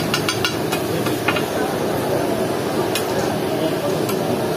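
Chopped tomatoes and green chillies sizzling on a hot flat griddle (tawa), with a metal slotted spatula scraping and clicking against the plate as it stirs them: a quick run of clicks near the start, then single ones. A steady low background rumble runs underneath.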